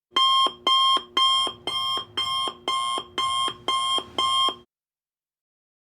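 Electronic alarm beeping: nine quick, buzzy beeps at about two a second, which stop abruptly.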